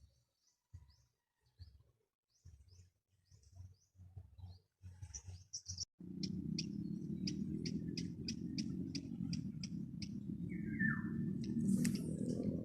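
Nestling birds giving high, thin cheeps. About six seconds in, a steady low rumble sets in abruptly, with regular ticks about twice a second and a short falling call near the end.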